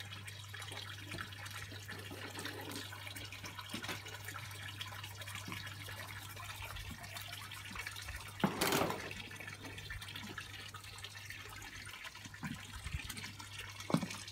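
Water trickling and splashing steadily from a lion-head fountain spout into a garden koi pond, over a low steady hum. A brief louder rush of noise comes about eight and a half seconds in, and a single knock near the end.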